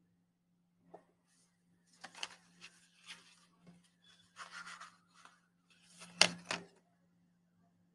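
Paper craft pieces being handled and rubbed against a paper plate, in short scattered rustling bursts, with two sharper clicks about six seconds in.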